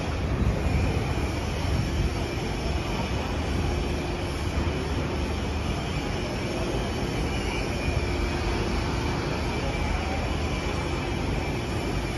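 Electric articulated road tram standing at the platform: a steady hum and low rumble with a faint steady tone that does not change.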